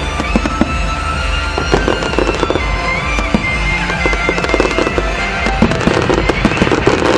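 Aerial fireworks bursting and crackling in rapid, dense succession, over music with held notes.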